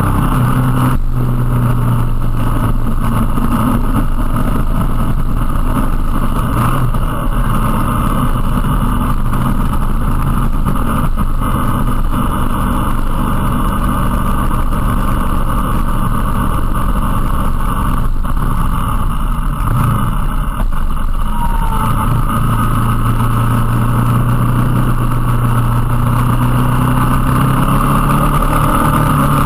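Motorcycle engine running under way, with wind rushing over the onboard camera's microphone. The engine note shifts with the throttle through the bends, then holds steady for the last several seconds.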